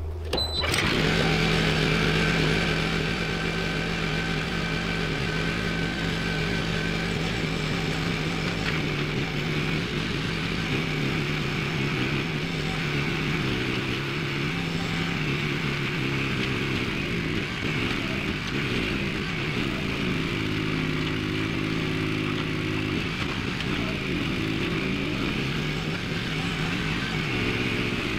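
Gas engine of a Groundhog HD99 towable post hole auger coming up to speed about half a second in, then running steadily under load as the auger bores a post hole, its pitch shifting a little as the load changes.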